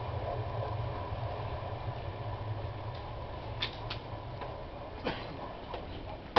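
Class 421 third-rail electric multiple unit running away into the distance, its steady hum slowly fading, with a few sharp clicks in the second half.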